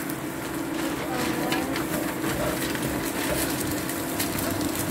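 Stew liquid bubbling and crackling in an enameled pot on the stove, with quick small pops over a steady low hum.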